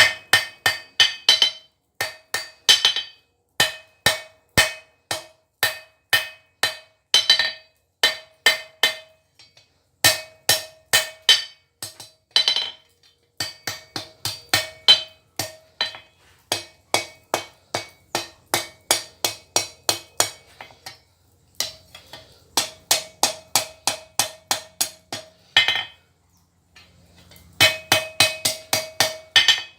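Hand hammer striking hot steel on an anvil in steady runs of blows, about two to three a second, each with a short metallic ring, while a tong half is forged. The hammering stops briefly a few times.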